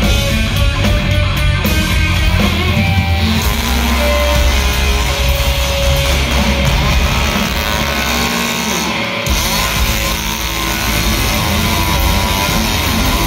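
Loud live hard-rock band with distorted electric guitars and drums, with a gasoline chainsaw running on stage and cutting into wood for the song's chainsaw solo.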